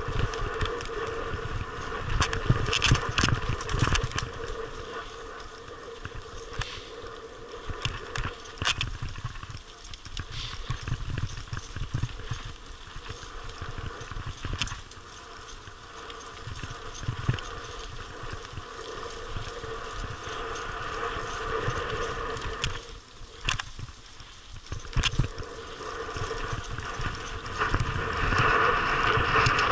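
Mountain bike rolling downhill on a rough dirt and gravel track, heard from a helmet-mounted action camera: tyres crunching over stones, with irregular rattles and knocks from the bike. The noise grows louder near the end as the track turns to loose gravel.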